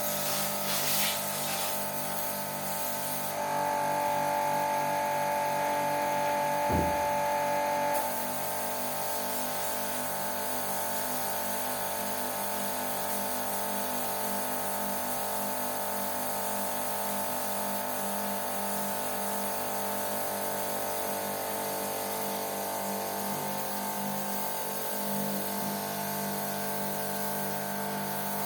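Electric pressure-washer pump running steadily while spraying water during an air-conditioner wet service. Its pitch shifts and it runs louder for a few seconds early on, with a single short thump about seven seconds in.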